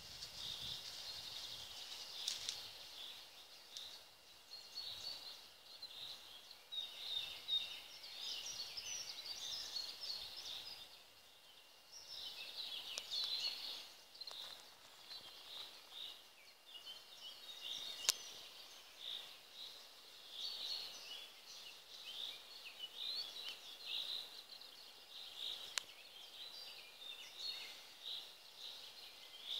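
Wild birds singing and chirping, many short high calls and trills overlapping throughout, over a faint steady high tone, with a few sharp clicks.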